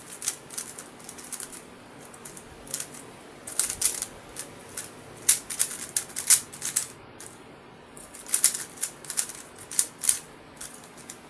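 MoYu WRM V10 speed cube being turned by hand in quick bursts of sharp plastic clicks and clacks, with short pauses between bursts; the cuber thinks the cube needs lube.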